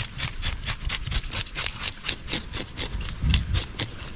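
A knife scraping scales off a grouper in quick, even strokes, about six or seven a second.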